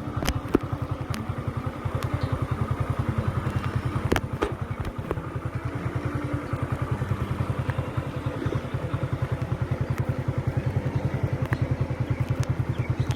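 A small engine running steadily with an even, rapid low throb, with a few sharp clicks over it.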